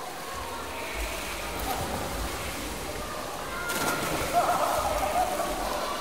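Swimming pool crowd ambience: many blended voices echoing with water sloshing and splashing, swelling a little louder about two-thirds of the way through.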